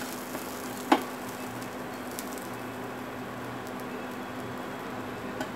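Pita bread cooking on a hot non-stick griddle with a soft, steady sizzle over a faint low hum, while a plastic spatula presses and turns it so it puffs into a pocket. One sharp tap of the spatula on the pan about a second in.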